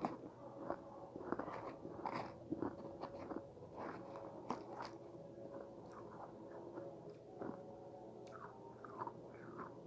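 Close-up chewing and crunching of freezer frost in the mouth: a run of irregular crisp crunches over a faint steady hum.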